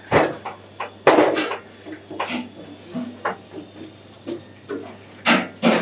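Irregular knocks and thumps of a wooden rolling pin and the cook's hands working paratha dough on a floured counter, about seven separate hits, the loudest about a second in and just before the end.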